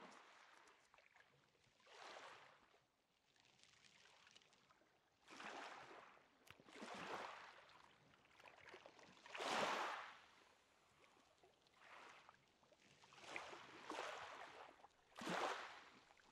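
Faint rushes of water swelling and fading again, one every one to three seconds, like small waves washing in; the strongest comes about halfway through.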